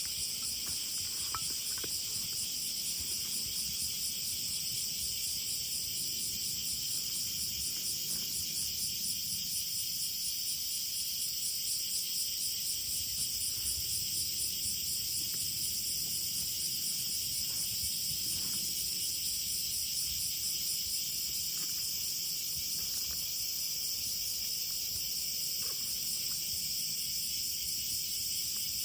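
Steady chorus of crickets and other insects, a dense high pulsing trill, with a few faint clicks.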